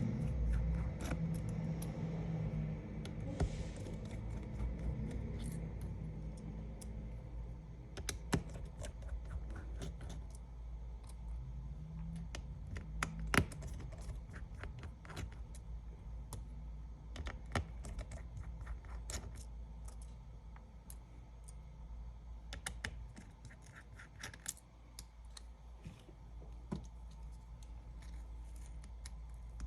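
Small tools and tablet parts being handled during iPad 10 disassembly: scattered light clicks, taps and scratches at irregular intervals, a few sharper taps standing out.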